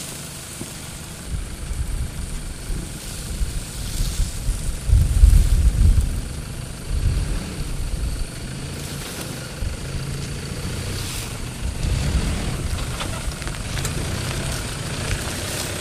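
Toyota Hilux 3.0 diesel engine running at low revs as the 4x4 crawls through a rough dry gully, a low rumble that swells about five seconds in and then settles.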